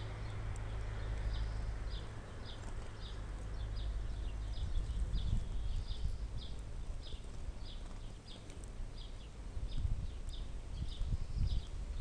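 Spotted flycatcher nestlings giving short high begging peeps, about two to three a second, while they gape in the nest. A low wind rumble on the microphone comes and goes underneath.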